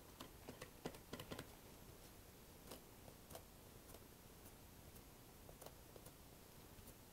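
Faint soft taps of a makeup sponge dabbing paint through a stencil onto a smooth board: a quick cluster of taps in the first second and a half, then a few scattered ones.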